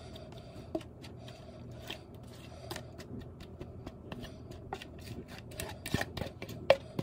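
Spatula scraping thick cheesecake batter out of a plastic mixing bowl into a cake pan: irregular soft scrapes and small clicks, with one sharper tap near the end.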